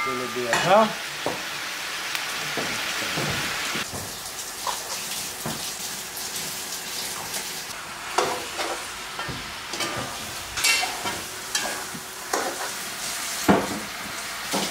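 Spices and curry leaves sizzling in hot oil in a cooking pot, stirred now and then. The sizzle is loudest for the first four seconds or so, then settles lower.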